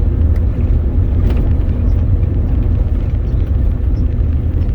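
Steady low rumble of road and engine noise inside a Ford F-150 pickup's cab, with a few faint ticks.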